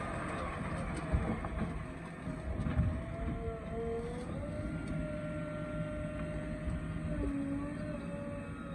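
Heavy diesel machine engine running with a rumble, carrying a whine that slides up and down in pitch, and a sharp knock about a second in.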